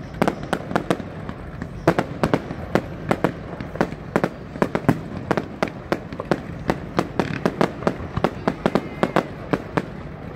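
Fireworks exploding in a rapid, irregular string of sharp bangs, several a second.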